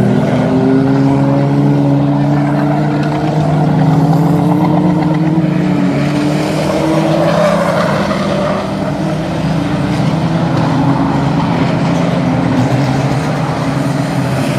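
Banger-racing cars' engines running hard as a pack races round an oval, several engines heard at once with their pitches rising and falling.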